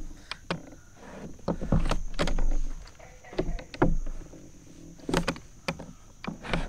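Irregular knocks and clicks of gear being handled in a kayak while fishing with a hand reel, with a louder low rumbling bump between about two and three seconds in.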